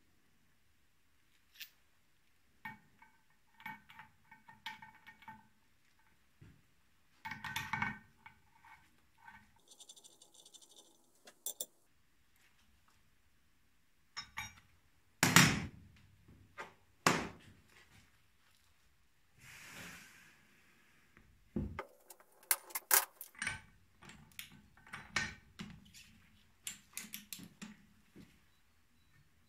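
Intermittent clinks, knocks and clatter of metal hand tools and engine parts being handled and set down on a metal workbench and a diesel cylinder head, with the sharpest clank about halfway through.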